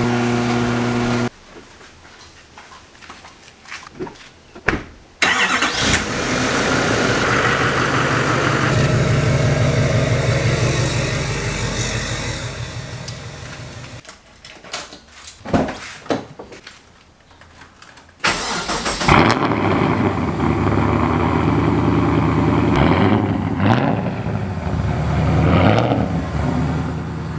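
Garage door opener motor running briefly. Then the LS1 V8 of a swapped BMW E36 M3 starts suddenly and runs, fading away. After a quieter gap with a few clicks, the V8 runs again with a few rises in revs near the end.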